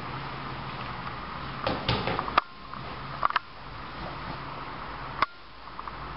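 Steady background hiss and hum, broken by a few sharp clicks and knocks: a cluster about two seconds in, one a little past three seconds, and one near the end.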